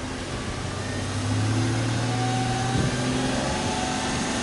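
Exhaust note of a Subaru Legacy 3.0R's EZ30 3.0-litre flat-six engine, heard at the twin tailpipes. The engine runs up about a second in, holds steady at raised revs for a couple of seconds, then eases off near the end.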